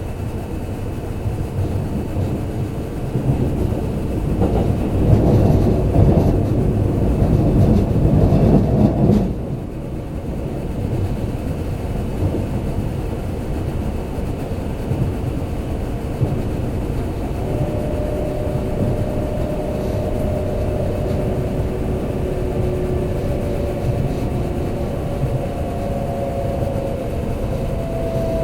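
Kintetsu limited express train running, heard from inside the passenger cabin as a low rumble of wheels and running gear. The rumble swells from about 3 seconds in and drops off suddenly just before 10 seconds. In the second half a steadier running noise carries faint steady tones.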